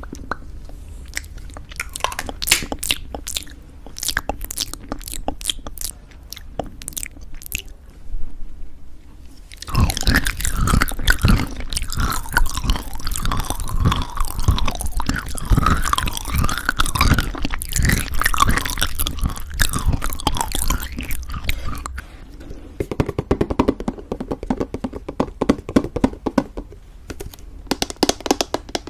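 Close-miked chewing of crunchy homemade granola in thick yogurt. The first ten seconds are sharp, separate crunches; then comes a dense, louder stretch of crunching for about twelve seconds before it eases off near the end.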